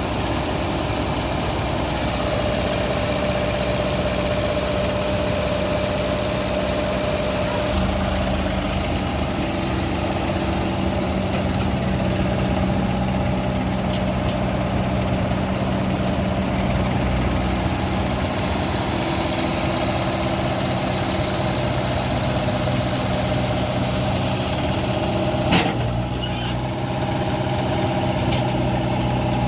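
JCB 3DX backhoe loader's diesel engine running steadily, its low note growing stronger about eight seconds in, with one sharp knock near the end.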